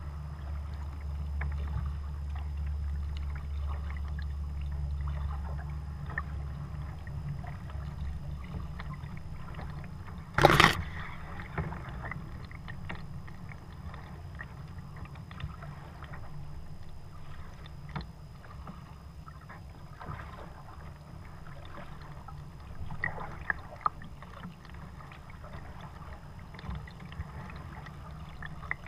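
Kayak being paddled on calm water: scattered small paddle drips and splashes over a low rumble that fades after about nine seconds. One loud knock comes about ten seconds in.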